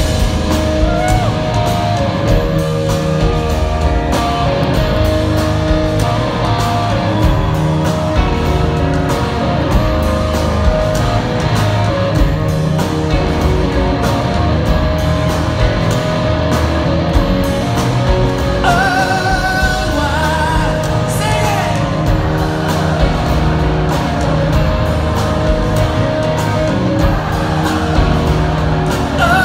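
Rock band playing live with a singer: electric guitars, bass and drums, heard from the audience in a large hall.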